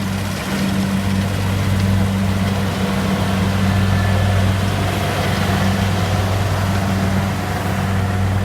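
Kubota DC70 combine harvester's diesel engine running at a steady speed: a low, even drone with no change in pitch.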